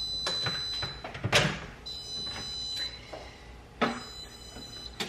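A high-pitched electronic beep that sounds for about a second, stops for about a second, and repeats, with knocks and clatter of cookware being handled; the loudest is a sharp clack about a second and a half in.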